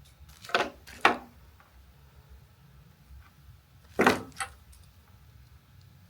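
Hand tools and small metal connector parts being handled and set down on a workbench: two short clinks about half a second apart near the start, then a louder clack about four seconds in followed by a lighter one.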